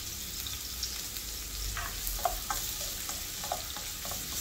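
Chopped onions sizzling in hot oil in a metal wok, with fine crackling throughout. Partway through, a spatula stirs and scrapes them across the pan in a few short strokes.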